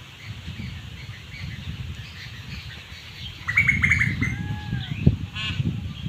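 A bird calling: a quick run of sharp chirps about three and a half seconds in, then a short curving note and a brief rattling call near the end, over a low rumble.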